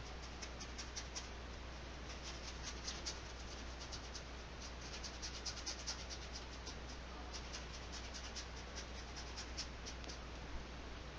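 Paintbrush scratching and dabbing acrylic paint onto canvas in many short strokes, with the brush also working paint on the palette, over a faint steady low hum.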